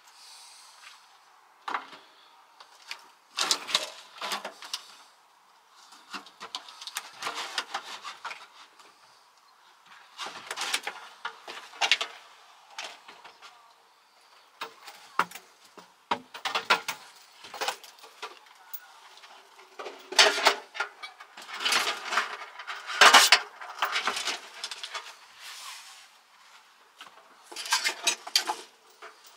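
Irregular knocks, clatter and scraping as a stainless steel sink is worked loose and lifted out of a camper van's kitchen worktop, coming in bursts with short pauses between.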